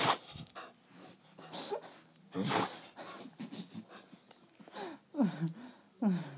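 A dog sneezing: sharp, sudden bursts right at the start and again about two and a half seconds in, amid wheezy breathing. Near the end come two short cries that fall steeply in pitch.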